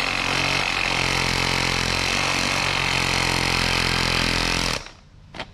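Cordless reciprocating saw running and sawing through a thick-walled 50 mm class 7 PVC pipe, a steady motor and blade sound that stops abruptly near the end, followed by a short click.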